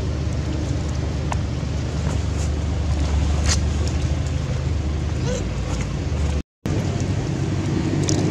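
Steady low rumble of a nearby motor-vehicle engine, with a few faint clicks. The sound drops out for a moment about six and a half seconds in.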